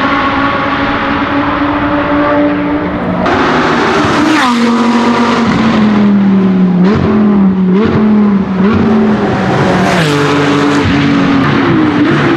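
Audi R8 LMS GT2 race car's 5.2-litre V10 running at speed. About three seconds in the note jumps louder and falls in pitch, then goes through several quick gear changes that each briefly break the note. The pitch rises again near the end.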